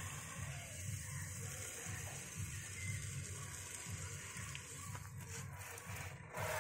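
Water hissing from a garden hose spray nozzle while a child's bicycle is washed, over a low, uneven rumble; the spray gets louder near the end.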